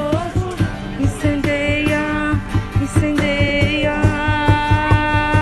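Christian worship song: a voice holding long sung notes over a steady beat.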